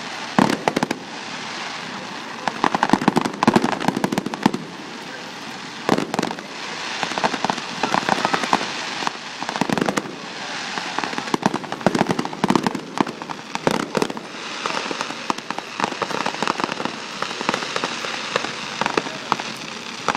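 Aerial fireworks going off in quick succession: sharp bangs with bursts of rapid crackling between them, over a steady rumble of continuous explosions.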